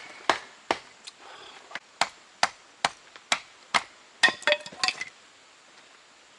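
Firewood being split by hand: about ten sharp, steady blows on wood, then a quick clatter of knocks and clinks about four seconds in.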